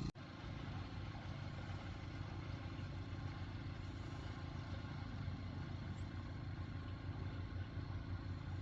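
A steady low hum of an engine or motor running evenly, as at idle.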